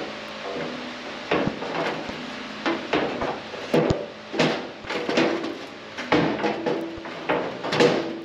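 A metal elbow pipe on a Cummins 4BT diesel engine being wrenched back and forth to work it loose: a string of uneven metal-on-metal scrapes and knocks, some with a short squeak, about one or two a second.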